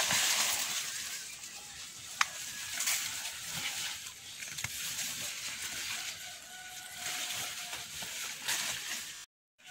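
Rustling and crackling of maize and bean plants brushed and handled while moving through a dense field, with a few sharp snaps. Faint bird calls come in over the last few seconds, and the sound cuts out briefly just before the end.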